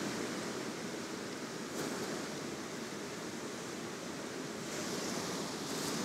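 Paintbrush scrubbing oil paint onto a slick, oil-primed MDF panel: a steady scratchy rustle, with a couple of brief faint scrapes.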